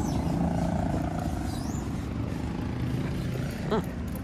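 A motor vehicle running on the road, a steady low engine rumble with a hum in the first second or so.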